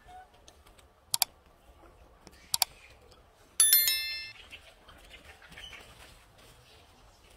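Subscribe-button overlay sound effect: two quick double mouse clicks about a second and a half apart, then a bright bell chime that rings and fades over about half a second.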